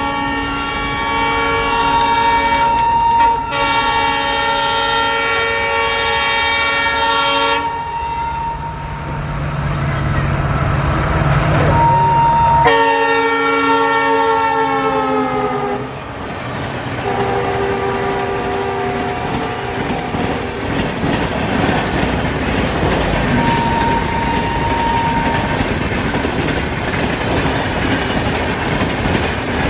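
EMD diesel locomotive horn sounding a long multi-note chord, then blasting again as the locomotive passes, its pitch dropping as it goes by, and once more at a lower pitch as it moves away. After that the train's wheels run past with a steady clickety-clack.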